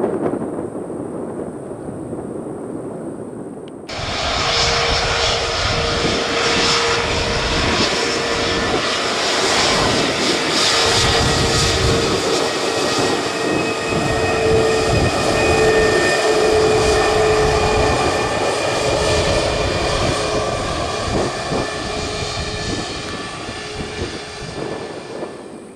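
Jet airliner engines, loud, with steady whining tones over a dense rush. They come in suddenly about four seconds in, after a quieter low rumble, and stop abruptly just before the end.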